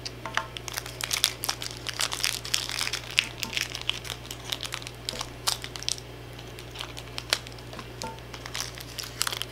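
Plastic blind-bag wrapper crinkling in the hands as it is handled and opened, an irregular run of small crackles.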